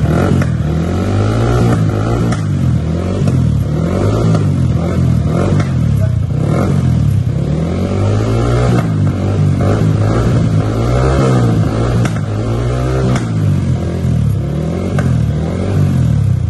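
Motorcycle fitted with a modified loud 'cement pipe' exhaust being revved again and again, the engine pitch climbing and dropping about every second and a half.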